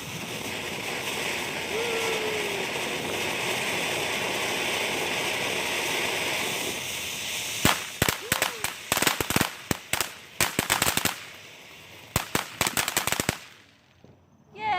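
Consumer firework fountain hissing steadily, then a long run of rapid crackling pops in quick clusters that stops suddenly.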